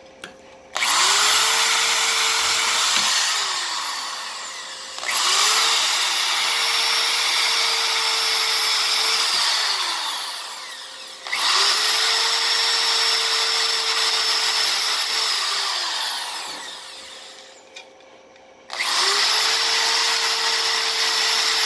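Corded electric drill boring holes through aluminum angle and plastic sheeting, run four times for a few seconds each. The motor whine rises as it spins up and falls away as it stops each time.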